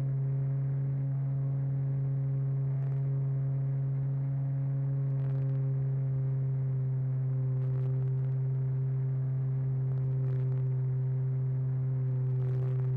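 RC airplane's motor and propeller heard from on board in steady flight: a constant low hum with several fainter overtones, holding nearly the same pitch throughout, with faint brief hisses every couple of seconds.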